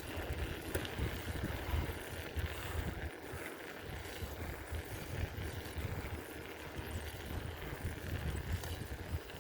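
Riding noise from a bicycle: wind buffeting the microphone, with a steady hiss of tyres and air and a few faint clicks and rattles.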